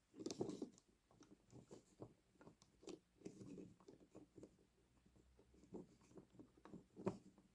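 Faint small clicks, taps and rubbing from fiddling with a model locomotive's bogie by hand: small plastic and metal parts, the wheelsets and springy pickup contacts, being pressed and fitted into place. The sounds are irregular, with a slightly louder rustle near the start.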